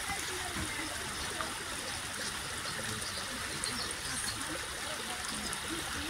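Steady rush of water running through a lakeside drainage channel, even and unbroken.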